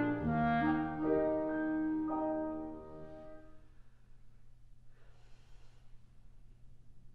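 Clarinet and piano close a phrase on held notes over a low piano chord, which fade away over about three seconds. Then a pause with only faint room hum.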